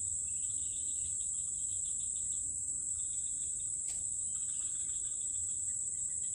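Steady high-pitched insect drone, with a lower pulsing chirr that comes and goes, and a single click about four seconds in.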